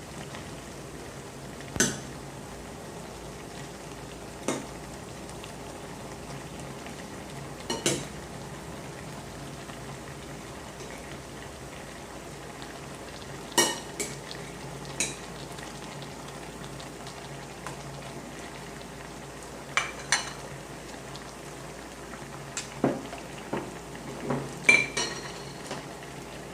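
Pot of vegetable broth simmering steadily, with a metal utensil clinking sharply against the pot about a dozen times, most often near the end.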